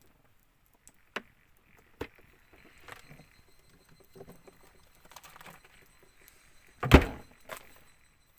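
Camp gear and food being handled and set down: scattered light clicks and knocks, with one loud thump just before seven seconds in and a smaller knock soon after.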